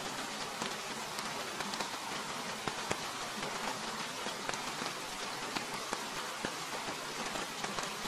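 Steady rain falling on a tarp shelter and the surrounding leaves: an even hiss scattered with many sharp ticks of single drops striking close by.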